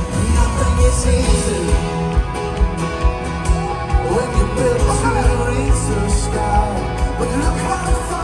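A folk-rock band playing live, with a steady drum beat under sustained guitar and other instrument notes.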